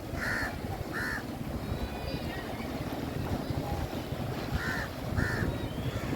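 Strong wind buffeting the microphone with a constant low rumble, while a bird gives four short, harsh calls in two pairs, one pair near the start and one near the end.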